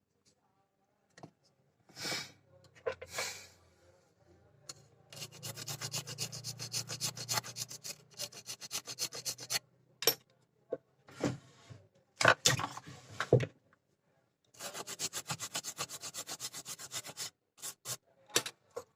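Scrubbing on a phone's circuit board to clean it: two long runs of rapid, even rubbing strokes, about six a second, with a few separate clicks and taps between them.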